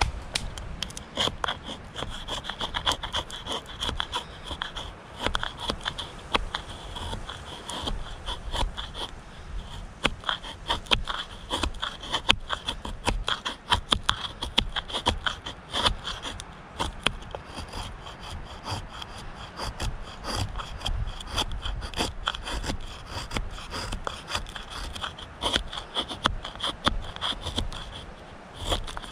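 Knife blade shaving a dry wooden stick held upright on a log, repeated scraping strokes a couple of times a second as thin wood curls are cut off for fire tinder.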